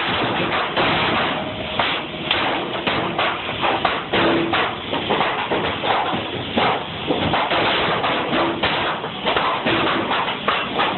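Irregular knocks and thuds of wooden pallet boards being worked and nailed, several in quick succession over a steady noisy background.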